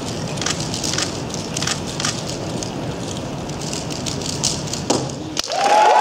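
Dayan Zhanchi 3x3 speedcube being turned fast: a dense crackling patter of plastic clicks over the hall's background noise. Near the end comes a sharp knock, then an abrupt cut to louder voices cheering.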